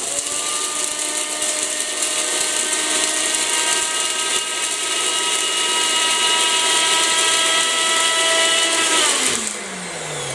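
Nutribullet blender with its milling blade grinding dried flint corn kernels into coarse flour: a steady, noisy motor whine that cuts out about nine seconds in and winds down with falling pitch.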